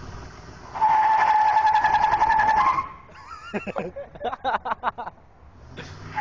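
Pickup truck's tires squealing in a loud, steady screech for about two seconds. Quieter, broken, wavering squeals follow, and a second screech starts at the very end.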